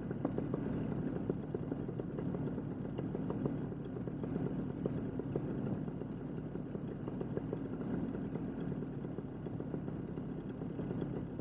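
Moster 185 single-cylinder two-stroke paramotor engine idling steadily in flight, its propeller turning behind the pilot.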